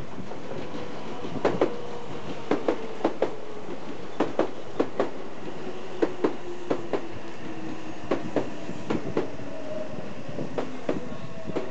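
Train passing, its wheels clacking in quick pairs over the rail joints many times, with a humming tone underneath that slowly slides in pitch.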